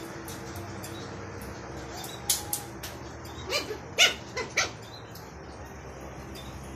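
Puppies playing give a quick burst of about half a dozen short, high yips and squeaks a little past the middle, over a steady quiet background.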